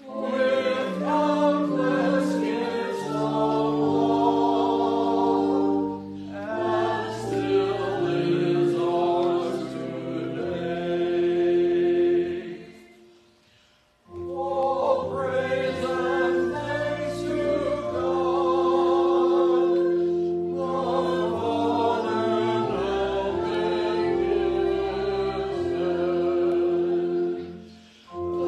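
Congregation singing a hymn in long held notes, breaking off briefly about halfway through and again near the end.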